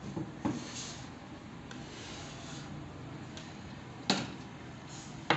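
Three sharp knocks, about half a second in, about four seconds in and just before the end, with faint rubbing or rustling between them, like something being handled.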